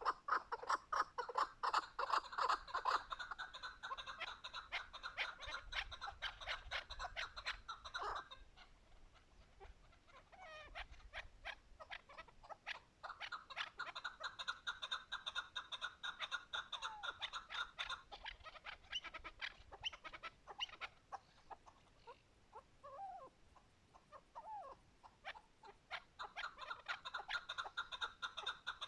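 Chukar partridge calling: rapid runs of clucking "chuk" notes in bouts, with short lulls between them and softer, scattered notes in the gaps.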